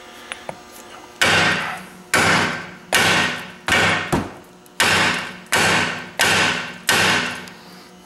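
Eight hard hammer blows on the steel of a car's front suspension, in two groups of four, each ringing out briefly. They are struck to shock a seized ball joint loose from its knuckle, with the nut left on a couple of threads.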